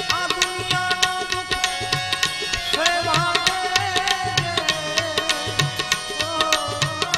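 Live Gujarati devotional folk music: a man singing a wavering melodic line over held harmonium chords, with percussion keeping a steady rhythmic beat.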